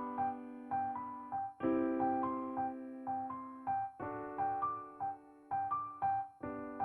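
Gentle background piano music: a held chord struck about every two and a half seconds under a simple repeating melody of short notes.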